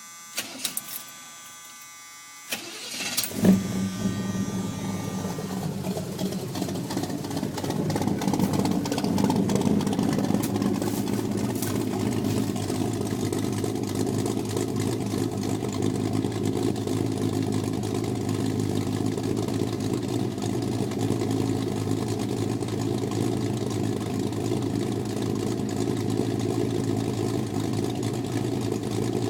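A few key clicks, then an old off-road truck's gasoline engine cranks briefly on the starter and catches about three seconds in, after sitting long enough to cool down. It runs a little louder for a few seconds, then settles into a steady idle.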